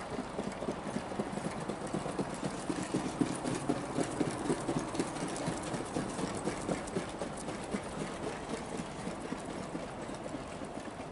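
Hoofbeats of two trotting harness horses pulling sulkies on a racetrack, a dense run of quick strikes over a steady low hum. They grow loudest a few seconds in as the horses pass, then recede.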